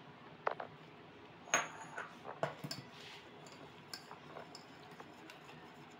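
A steel spoon clinking and knocking against a stainless steel saucepan of lemon squash syrup: a string of short, sharp clinks, most of them in the first three seconds.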